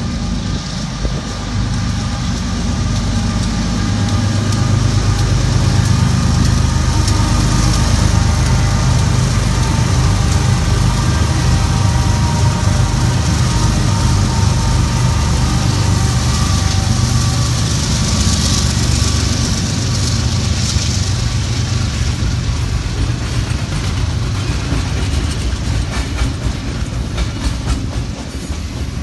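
BNSF freight train passing: the diesel locomotives' engines build to a loud, steady rumble, then the double-stack container cars roll by with wheel-on-rail noise.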